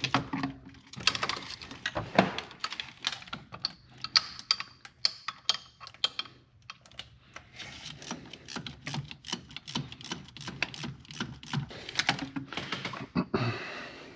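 Hand ratchet wrench clicking in quick runs with short pauses as a bolt is tightened down.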